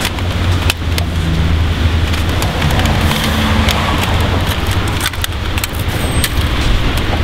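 Plastic cassette case and Walkman being handled, with repeated sharp clicks and rattles. Under them runs a steady low rumble and hiss.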